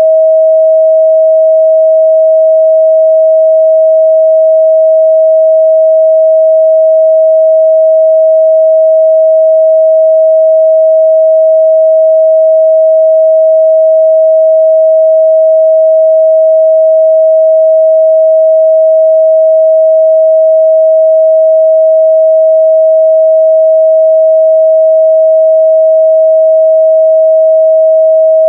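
A steady, loud 638 Hz sine-wave test tone, a single pure pitch held without change.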